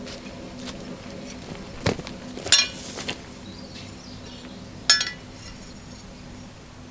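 A few sharp metallic clinks of a hammer striking steel; two of them, a second in and near the middle, ring out loudly. A steady low hum runs underneath.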